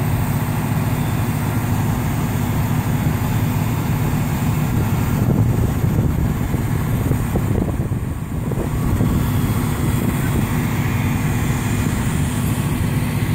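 Fire engines' diesel engines running steadily at the scene, a continuous low drone with no let-up.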